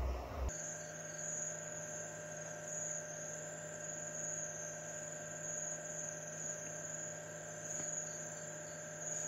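Steady electrical hum with a thin, high whine above it, the kind of noise on a surveillance recording's sound track. A low, pulsing rumble from the previous clip cuts off about half a second in.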